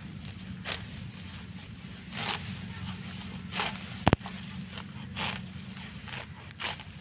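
Serrated hand sickle slicing through handfuls of grass: about five short rasping swishes, roughly one every second and a half, with one sharp click about four seconds in, the loudest sound.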